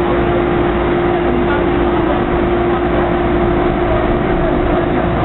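MTR Kwun Tong Line train C278 running: a steady electric motor whine held at one pitch over loud, even rumbling of the train.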